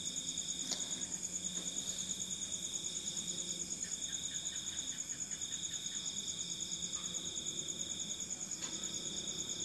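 Insects trilling steadily: a high, rapidly pulsing trill with a second, lower trill that breaks off and resumes every few seconds.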